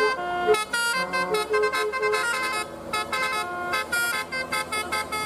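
Bus telolet horn of the Basuri type, a multi-note electric musical horn, playing a quick tune of short separate notes at changing pitches.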